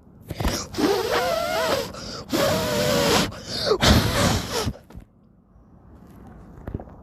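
A person's voice letting out three long, strained cries with a wavering pitch over about five seconds, the last ending sharply just before the end.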